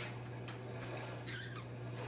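Pet parakeets and zebra finches chirping in short calls, most clearly about a second and a half in, over a steady low hum.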